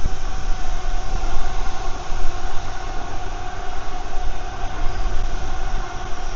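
Velotric Discover 2 e-bike riding under motor power in cadence sensor mode: a steady motor whine over wind rumble on the microphone and tyre noise.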